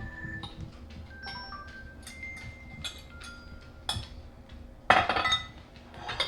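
A fork clinking and scraping against a glass measuring cup and a plate while scrambled eggs are served, a series of light clinks with short ringing notes, then a louder clatter about five seconds in.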